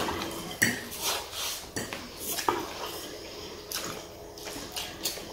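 Metal forks clinking and scraping on plates of noodles, with short bursts of noodles being slurped.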